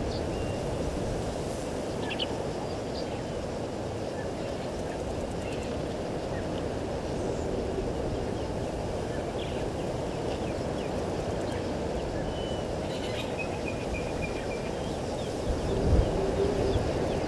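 Outdoor bushveld ambience: a steady low rushing noise with scattered faint bird chirps and a short trill over it, and a brief low thump near the end.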